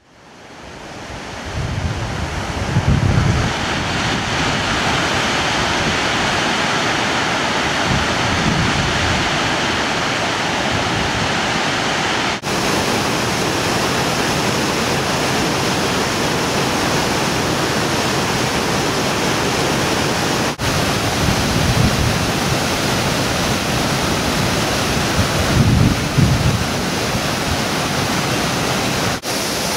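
Waterfall: a steady rush of falling water that fades in over the first couple of seconds. Low gusts of wind on the microphone come through a few times, and the sound drops out for an instant three times.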